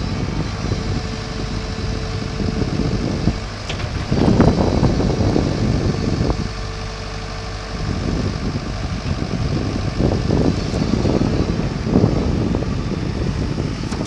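Komatsu PC128US-2 excavator's diesel engine running as the boom, arm and bucket are moved, with louder surges from about four to six seconds and again from ten to thirteen seconds. A steady tone sounds over the engine for the first three seconds and again briefly in the middle.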